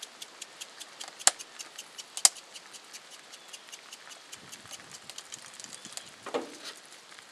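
Light, irregular crackling and small pops from eggs frying in butter in a cast-iron skillet over a small wood fire, with two sharp clicks a second apart early on.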